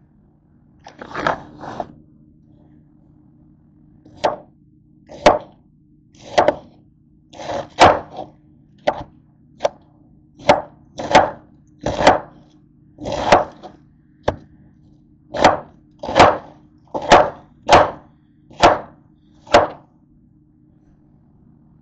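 Kitchen knife chopping a cabbage on a cutting board: about twenty sharp chops at an uneven pace, starting about a second in and stopping about two seconds before the end.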